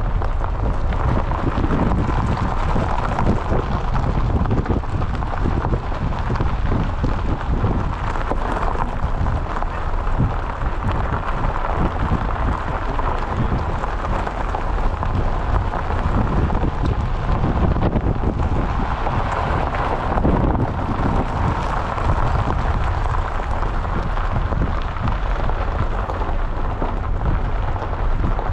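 Car rolling slowly along a gravel lane, its tyres crunching on the gravel in a steady crackle, with wind rumbling on the microphone at the open window.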